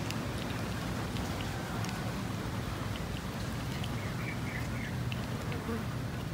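A cat eating food off a concrete floor, with faint, irregular little clicks of chewing over a steady low hum.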